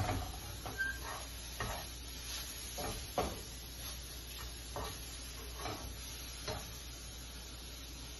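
Irregular knocks and scrapes of a kitchen utensil against cookware, about ten over six and a half seconds, over a steady low hum.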